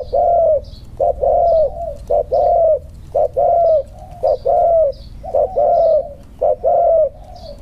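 Spotted dove cooing: a short note followed by a longer arched coo, the phrase repeated about once a second, seven times over.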